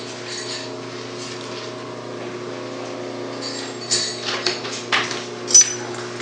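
A Dürkopp Adler 204-370 heavy-duty sewing machine standing with the needle stopped, its motor keeping up a steady low hum. From about four seconds in come a few short clicks and knocks as the stitched sling webbing is pulled out from under the presser foot and handled.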